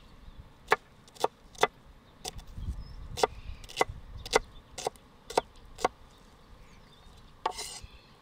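Chef's knife chopping onion on a wooden cutting board: about ten sharp knocks, roughly two a second, stopping about six seconds in. A brief rustling sound follows near the end.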